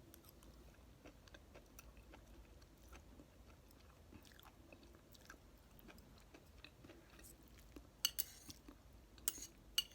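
Soft, close-up chewing of noodles and enoki mushrooms: faint wet mouth clicks throughout, with a few sharper smacks near the end.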